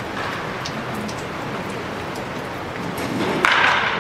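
Steady, even hiss of indoor batting-practice ambience, with faint short cracks of bats hitting balls in the cages. A louder rushing noise comes about three and a half seconds in and lasts about half a second.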